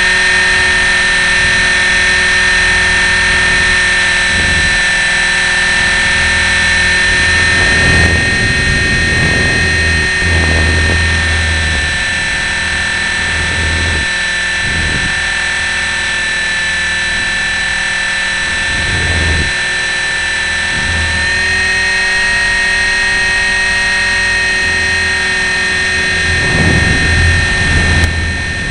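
Electric motor of a KDS 450Q radio-controlled model in flight, heard from the on-board camera's microphone: a steady high whine made of several held tones, stepping up slightly in pitch a little after twenty seconds in. Low buffeting rumbles swell and fade over it, strongest about eight to twelve seconds in and again near the end.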